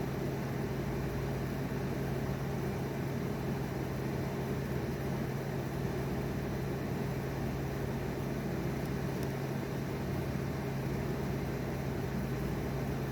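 Steady low mechanical hum: one constant droning tone with even noise over it, unchanging throughout.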